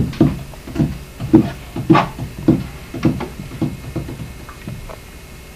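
Quick, hollow wooden knocks, about two a second, as a paintbrush is worked against the inside of a plywood boat hull. They fade out near the end.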